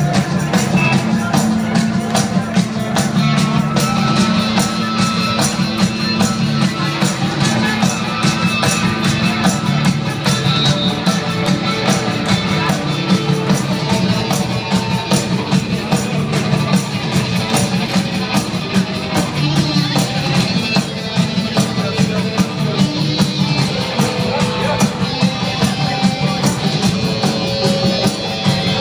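Live rock band playing, with a steady drum beat running throughout.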